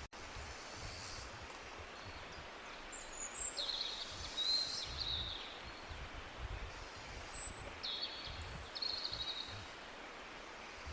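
Steady rushing of a jungle waterfall under tropical birds calling: a flurry of high chirping calls about four seconds in and another about eight seconds in. There is a split-second dropout at the very start.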